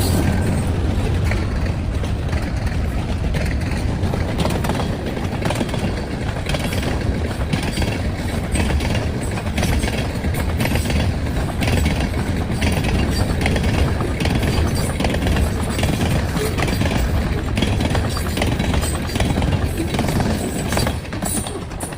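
Diesel train rolling past with a low engine rumble and steady clickety-clack of wheels over rail joints, fading away near the end.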